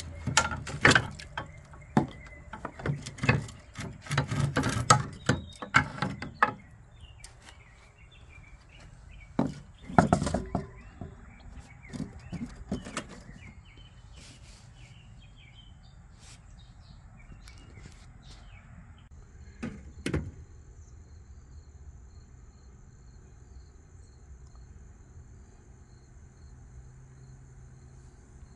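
Sharp knocks and clanks in quick runs, most of them in the first six seconds, more around ten to thirteen seconds in and a single one near twenty seconds. After that a faint, steady insect trill.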